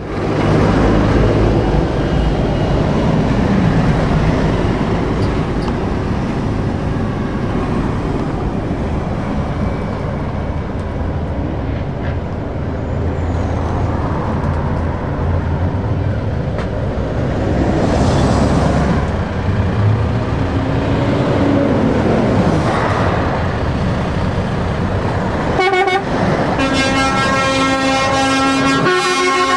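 Heavy lorries driving past in a convoy, their engines and tyres giving a steady rumble. Near the end a truck air horn blasts, a loud chord of several tones, broken by short gaps.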